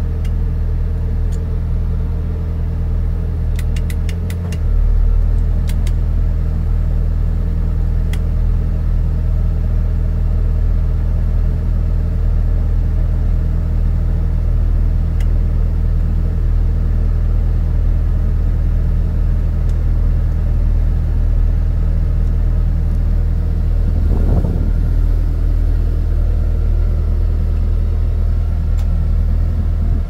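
Kawasaki Ridge side-by-side's four-cylinder engine idling steadily, stepping up slightly about four and a half seconds in. A few light clicks come early in the idle.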